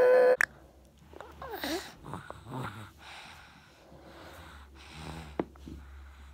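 A toddler's loud held vocal note cuts off about half a second in. Then there is only soft breathing and snuffling close to the microphone, with a few faint little voice sounds, as the child and a man lie with their heads down on a carpet.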